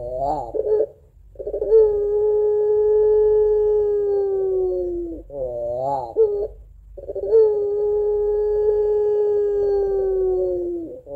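Puter pelung (domestic ringneck dove) giving its long 'crying' two-note call: a short quavering note followed by a long, steady note held for about four seconds and falling slightly in pitch, heard twice.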